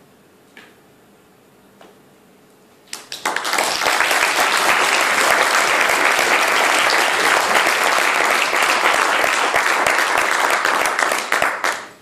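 Audience applauding: a few quiet seconds, then clapping that begins about three seconds in, holds steady and loud, and dies away just before the end.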